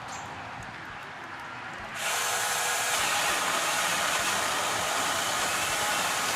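Seesii electric chainsaw pole saw running, a steady, loud hissing buzz that starts suddenly about two seconds in and stops suddenly near the end.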